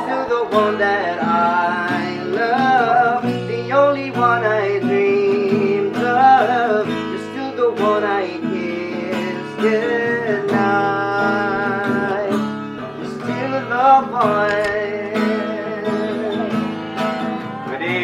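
Acoustic guitar strummed while a man sings along, a slow love ballad performed live.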